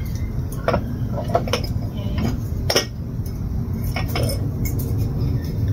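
Kitchen clinks and taps: a small spoon and seasoning jars being handled and set down on the counter, about a dozen sharp clicks scattered through, over a steady low rumble.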